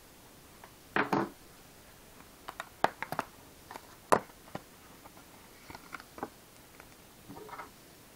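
Foil trading-card pack being torn open, with a short tearing burst about a second in. Sharp crinkles and crackles of the foil wrapper follow, with softer rustling as the cards are handled.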